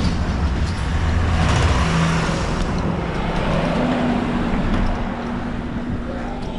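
A goods truck driving past close by: its engine rumble and tyre noise swell to a peak about two seconds in and then fade. A steady low engine hum carries on through the second half.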